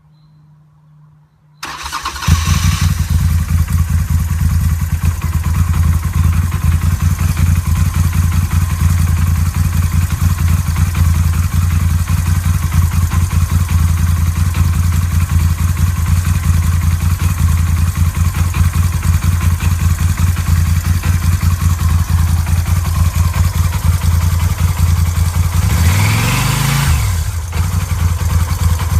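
Norton Commando 961 parallel-twin engine starting up about two seconds in and then idling steadily with a deep, even pulse. It is revved near the end, the pitch rising and falling back.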